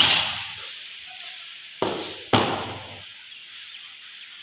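Rifle drill squad's boots stamping and rifle butts striking the concrete floor in unison, echoing in the hall: one crack at the start, then two more about half a second apart near the middle.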